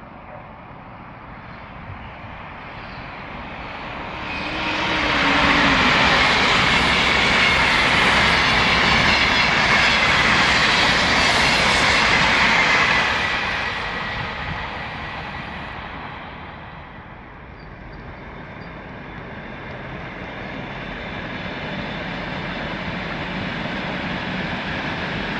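A Sapsan high-speed electric train (Siemens Velaro RUS) passing at speed: a rushing whoosh that builds over a few seconds, stays loud for about eight seconds with a whine that drops in pitch, then fades. From about the middle onward, a red-and-grey electric suburban train runs past further off, its rumble rising steadily.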